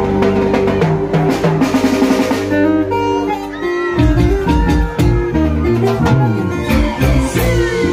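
Live band music with electric bass and drum kit. About four seconds in, the bass and drums drop into a driving dance rhythm.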